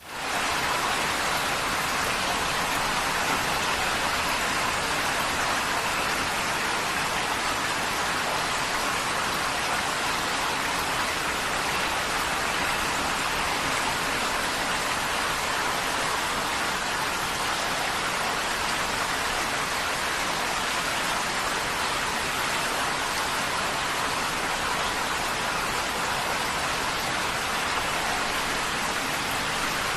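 Heavy rain drumming steadily on a tin roof: a dense, even patter. It fades in within the first moment.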